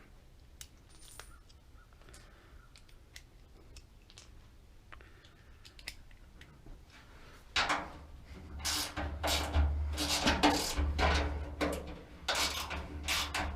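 Quiet handling with a few small metal clicks, then from about halfway a hand ratchet wrench worked in quick repeated strokes, a few rasping clicks a second, loosening a screw.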